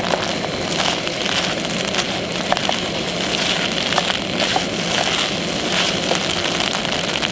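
Gas camping stove burner running steadily under a pot, with a metal spork scraping and clicking against the inside of the metal pot as food is stirred.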